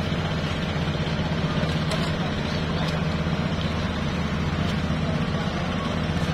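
Diesel engines running steadily on a ro-ro ferry's vehicle deck, a constant low drone of the loaded truck and the ship's machinery, with no change in pitch or level.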